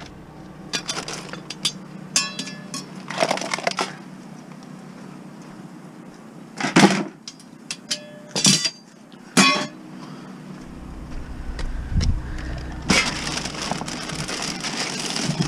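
Pieces of scrap sheet metal being handled and loaded, giving several short clanks and rattles, the loudest about seven to nine and a half seconds in. A longer stretch of noise follows near the end.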